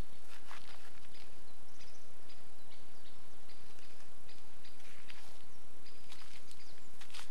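Outdoor ambience: a steady hiss with scattered short clicks and brief high chirps.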